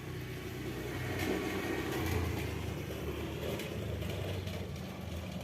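A motor vehicle's engine running and passing by, its low hum swelling to a peak about two seconds in and then easing off.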